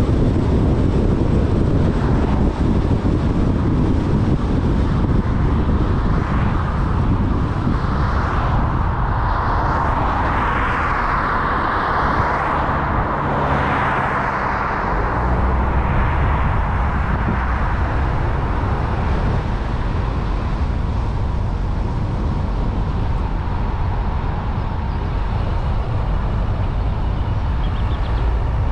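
A car driving on a main road: a steady low rumble of engine, tyre and wind noise. A louder wash of noise swells and fades about a third of the way through, and a steady engine note shows briefly as the car slows through a roundabout.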